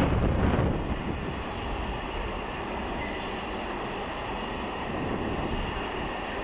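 Container flat wagons of a freight train rolling past at speed: a steady noise of wheels running on the rails, louder for the first second.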